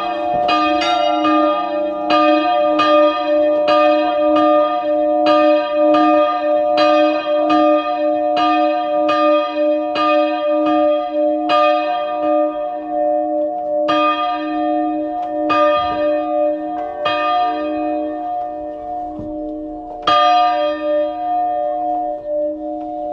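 Hand-swung church bells, a pair tuned to E-flat and F and cast in 1561 and 1699, ringing with clapper strikes in quick succession and a lasting hum. From about halfway the strikes come further apart and fainter.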